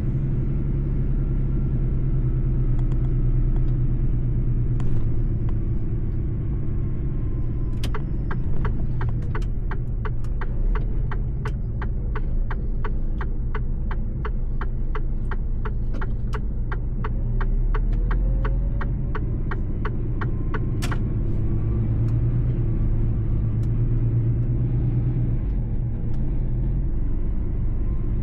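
Mercedes-Benz truck's diesel engine running at a steady speed with low road rumble. Partway through, an even ticking of about three a second starts and runs for roughly a dozen seconds, ending with a sharper click.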